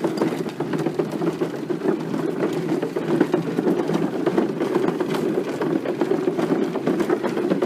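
Steady, loud mechanical rumble like a running vehicle engine, with a fast, even flutter and no pauses.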